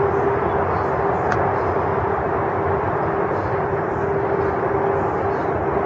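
Steady outdoor rumble with a constant hum running through it, unchanging throughout.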